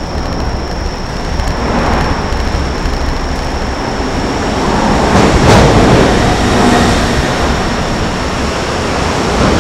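Steady traffic rumble on Rainbow Bridge, swelling about five seconds in as something passes close by, with a faint steady high whine throughout.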